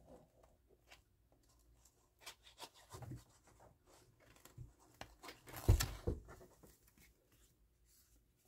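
Faint paper rustling and light handling sounds as liquid glue is run along the edge of a folded paper pocket and the paper is pressed down, with one soft thump a little past the middle.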